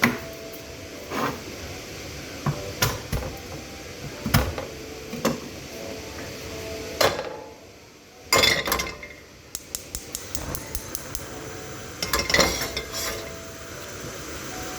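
Kitchen utensils and dishes clattering and knocking at irregular intervals during cooking prep, with a quick run of light taps about ten seconds in.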